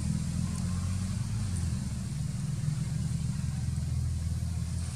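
Steady low hum of an idling engine, dropping in level near the end.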